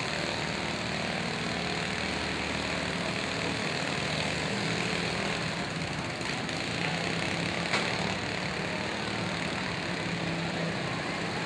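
Several riding lawn mower engines running together in a steady drone, with one sharp bang about eight seconds in.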